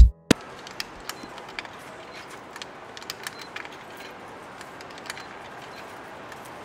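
Faint, irregular clicks and a few short high beeps as buttons on a street parking pay station are pressed, over steady traffic and street noise.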